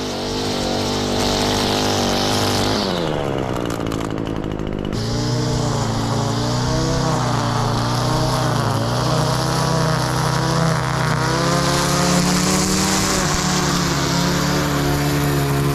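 Two-stroke string trimmer (weed eater) engine running at high revs, dropping toward idle about three seconds in, then revving back up about five seconds in and holding high, its pitch wavering.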